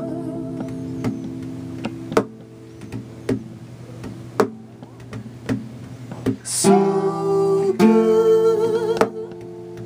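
Acoustic guitar strummed: chords struck about once a second and left to ring, with a fuller, busier stretch of playing in the second half.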